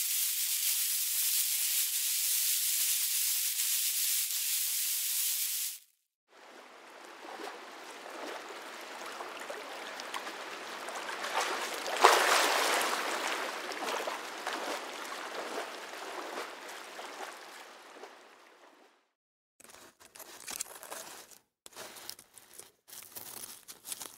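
A snake hissing steadily, cutting off after about six seconds. Then water bubbling and trickling, swelling and fading away. Short broken bursts of noise near the end.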